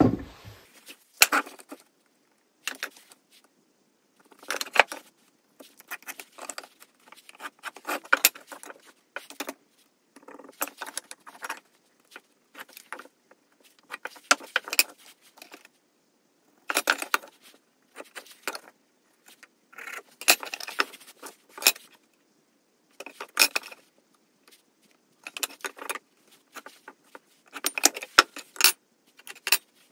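A pencil scraping lines along a plastic speed square onto wooden blocks, with the square and blocks being set down and shifted on a wooden workbench: short, irregular scrapes and light knocks with pauses between them.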